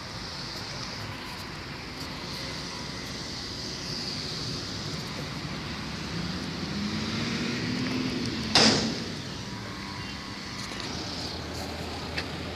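Steady hiss of falling rain, with a car going by about six to eight seconds in and one sharp knock, the loudest sound, just after.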